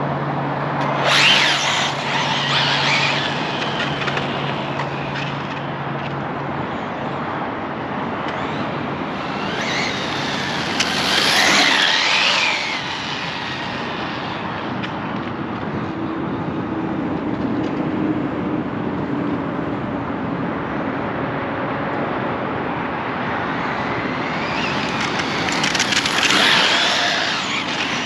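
Arrma Felony RC car with a Castle 1717 brushless motor on an 8S battery, running fast on asphalt: motor whine and tyre noise swell and glide in pitch as it passes close, about a second in, around eleven seconds and near the end, with a steady hiss between passes.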